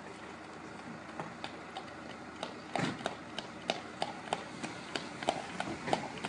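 A horse's hooves on an asphalt road, coming closer: faint at first, then from about halfway through a regular clip-clop of about three hoofbeats a second that grows louder.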